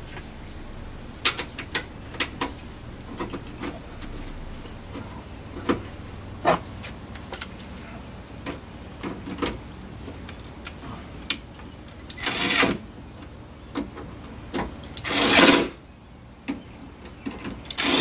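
Small clicks and knocks of parts being handled inside an open car door, then a cordless drill-driver run in three short bursts of about half a second each: about twelve seconds in, louder at fifteen, and again at the end, driving the door-handle bolts back in.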